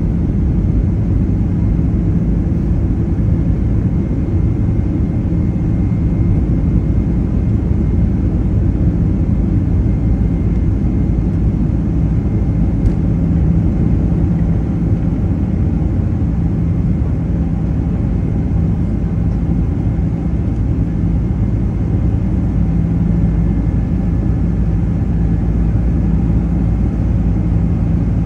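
Boeing 767-300's twin turbofan engines at takeoff thrust, heard from inside the cabin over the wing: a loud, steady, low rumble through the takeoff roll and liftoff.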